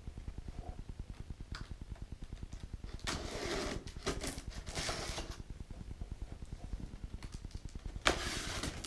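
Rustling, scraping handling noises in bursts, about three seconds in and again just before the end, over a fast, even low pulsing of about eight beats a second.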